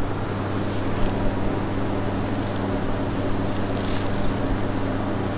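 Steady low room hum, with a few faint brief scratches about four seconds in.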